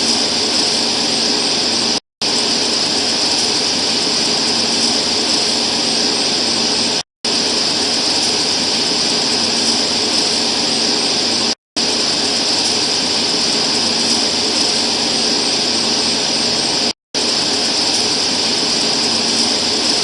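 Steady, loud hiss, like heavily amplified background noise, with a brighter band high up and no voice or tone in it. It cuts to dead silence four times, each for a fraction of a second, every four to five seconds.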